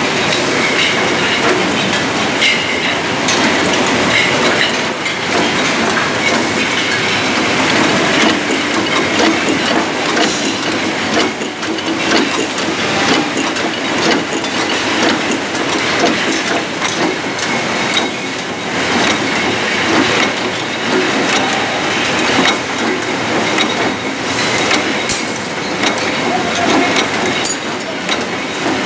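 Liquor bottling line running: a loud, steady mechanical clatter full of quick clicks of glass bottles knocking together on the conveyor and in the filling and capping machines.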